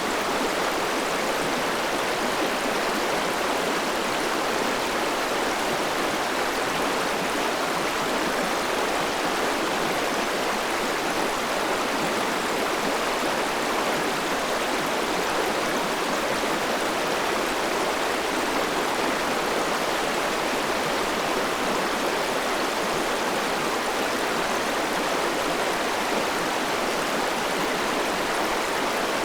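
River water flowing steadily over rocks: an even, unbroken rushing with no single splashes standing out.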